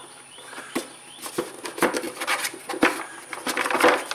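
Plastic clicks, knocks and scrapes from hands unfastening and working loose the air-cleaner cover on a Kawasaki FS730V V-twin mower engine. There is a short sharp knock about every half second, and a longer rattling stretch near the end.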